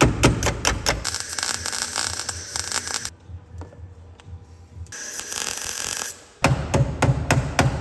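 A few hammer taps on thin sheet steel, then a MIG welder crackling and buzzing in several bursts as it welds a thin steel patch panel onto a car's rocker.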